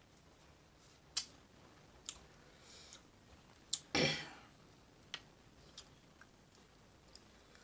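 Thin flatbread being torn by hand over a plate of chili: scattered small clicks and crinkles, with one louder rip about four seconds in.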